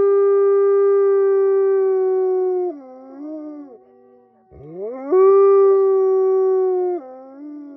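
A wolf howling: a long, steady howl that drops in pitch and trails off about three seconds in. After a short pause a second howl rises from low to the same steady note, holds, and drops in pitch again near the end.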